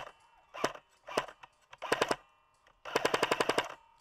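Airsoft rifle firing three short bursts of a few shots each, then a full-auto burst of about a dozen rapid shots lasting about a second near the end.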